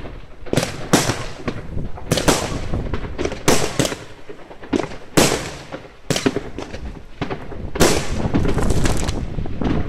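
Aerial fireworks bursting overhead: an irregular series of sharp bangs, about one or two a second, each trailing off in a short echo, growing into a denser run of overlapping bangs near the end.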